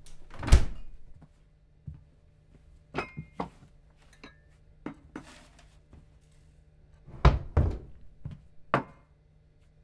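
Kitchen cabinet doors being banged shut again and again. A hard slam comes about half a second in, then a few lighter knocks and clatters, then three more loud bangs close together near the end.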